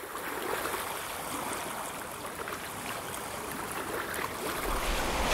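Running water of a stream: a steady, even rushing with a fine flicker in it. A low rumble joins near the end.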